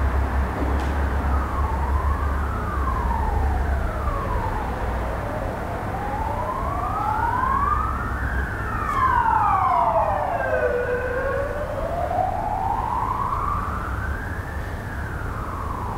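Emergency-vehicle sirens wailing, each tone sliding slowly up and down every few seconds, with two sirens out of step and loudest around the middle. A low traffic rumble runs underneath.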